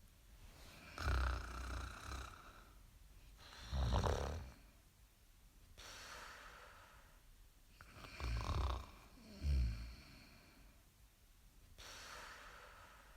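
A person snoring: four loud, low snores at uneven spacing, with quieter breathing between them.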